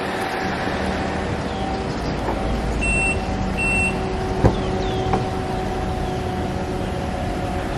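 An engine running steadily with a constant drone, with two short high beeps about three seconds in.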